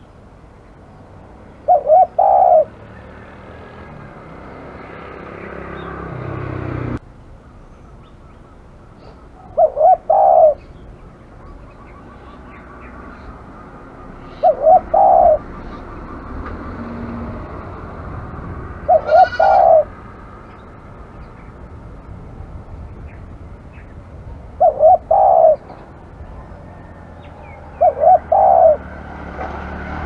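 Spotted dove cooing: six short phrases of two or three coo notes each, spaced about four to eight seconds apart.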